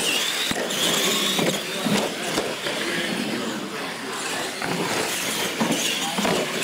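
Radio-controlled monster trucks racing on a concrete floor: a high motor and gear whine that climbs a little as they launch, over tyre noise, with several sharp knocks as the trucks land off ramps.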